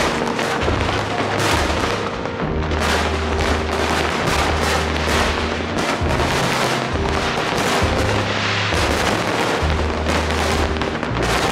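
Fireworks display going off in a dense barrage of rapid bangs and crackling, with music and a steady bass line under it.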